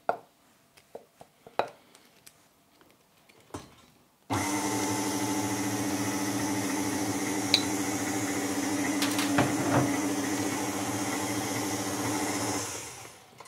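KitchenAid Artisan stand mixer running steadily, its flat beater stirring coarsely ground walnuts into creamed lard and sugar in a steel bowl. A few light knocks and clinks come first; the motor switches on abruptly about four seconds in and winds down just before the end.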